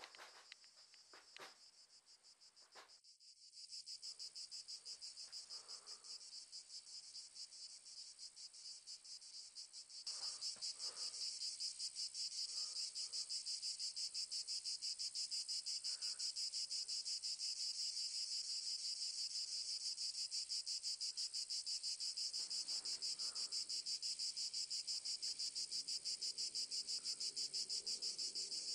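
A dense chorus of insects chirring outdoors, a fast, even, high-pitched pulsing that grows louder about ten seconds in and then holds steady.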